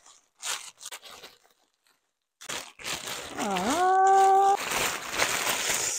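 Plastic mailer bag crinkling and rustling as it is pulled open, starting after about two near-quiet seconds. About three and a half seconds in, a woman's drawn-out vocal 'ooh' dips and then rises, held for about a second over the crinkling.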